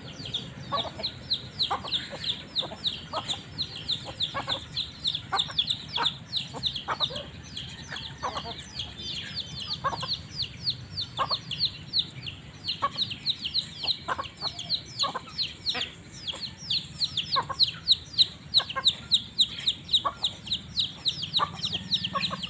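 A flock of young chickens peeping continuously while they feed: a dense stream of short, high, falling peeps, several a second, with shorter low notes scattered among them.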